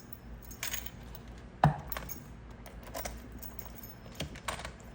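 Mortise lock being worked by key and lever: a series of separate metallic clicks and clacks from the key in the cylinder and the lock mechanism. The loudest is a sharp clack about a second and a half in.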